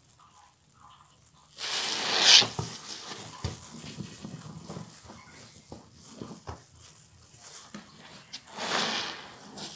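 Soap-soaked sponge squeezed by hand: a loud wet squelch and rush of water about two seconds in and again near the end, with small crackles and wet clicks of foam between.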